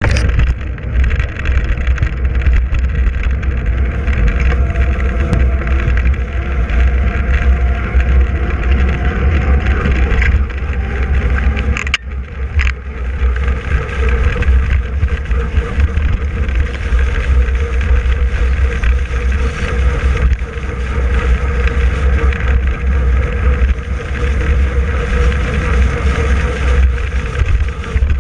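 Wind rushing over the microphone on a bicycle descending an asphalt road at about 60 km/h, a steady heavy low rumble with a brief dip about 12 seconds in.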